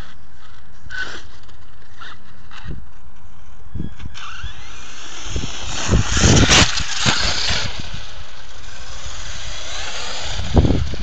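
Brushless electric RC monster truck (HPI Savage Flux HP) driving in dirt: its motor whines up, then a loud burst of motor and spinning tyres churning loose dirt as it climbs a sandy mound, with a shorter burst near the end, over a steady hiss.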